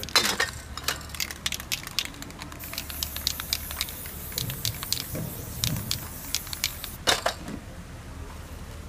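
Aerosol spray-paint can hissing in short bursts, a longer spray near the start and another about seven seconds in, with many short crackles and spits between.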